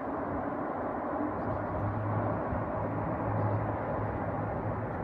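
Distant aircraft engines running on the airfield, a steady rushing noise joined by a low steady hum about a second and a half in.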